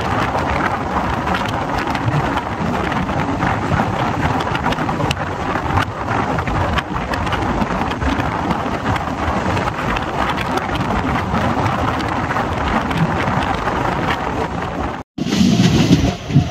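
Old ICF passenger coach running at speed, heard from on board: a steady rush of wind and rumble of wheels on rail, with scattered clicks. It cuts off abruptly about fifteen seconds in and a different, lower sound follows.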